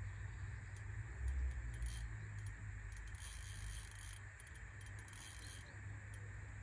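Wind rumbling on the microphone, strongest a little over a second in, over a steady outdoor background hiss, with a few faint, brief high-pitched sounds.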